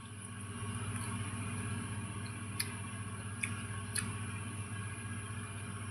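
Faint eating sounds from someone chewing pomelo segments, with a few soft clicks of the mouth, over a steady low hum.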